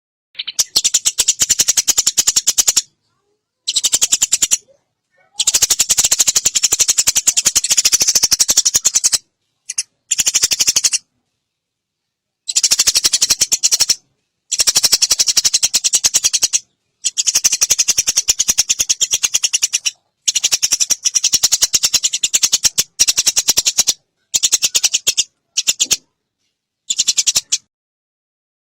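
Eurasian tree sparrow giving its long, rapid chattering rattle, a fast string of high clicking notes, in a dozen or so runs of one to three seconds broken by short silent gaps.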